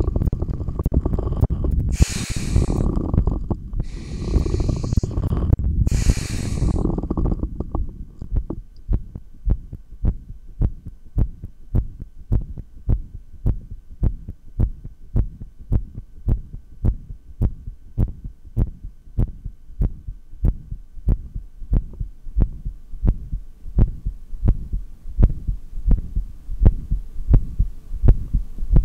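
Three loud breaths through a stethoscope microphone in the first few seconds, then the man's heartbeat alone, heard through the stethoscope as a steady run of evenly spaced low thumps as he holds his breath on emptied lungs.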